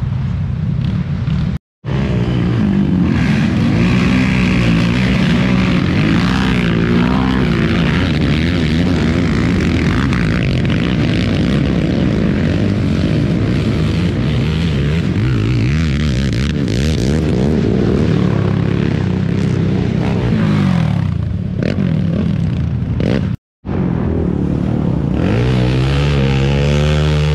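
Racing quad (ATV) engines running and revving, several engines overlapping with pitches rising and falling. The sound drops out for a split second twice, and near the end a single engine holds a steadier, lower note.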